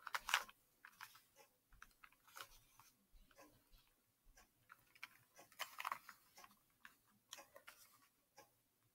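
Faint, irregular plastic clicks and short scrapes of a Rubik's cube's layers being turned by hand, a few turns at a time.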